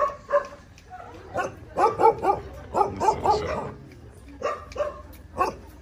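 Dogs barking and yipping in short, repeated bursts.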